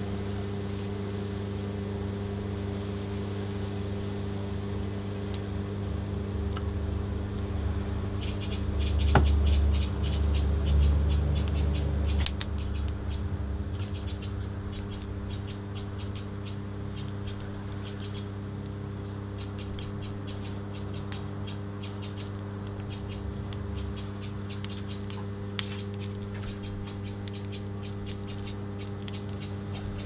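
Steady mains-frequency electrical hum from the 25-amp supply driving current through the connectors, swelling louder for a few seconds about a third of the way in. From about eight seconds in, a rapid clicking rattle comes and goes in short bursts over the hum.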